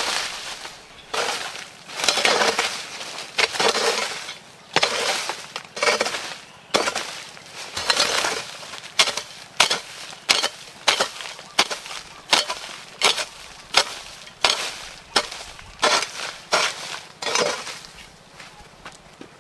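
Hoe scraping and chopping at dry dirt ground and dead leaves, stroke after stroke with a crunching rasp. The strokes come about one a second at first with longer rustles, then quicker and sharper from about halfway, stopping near the end.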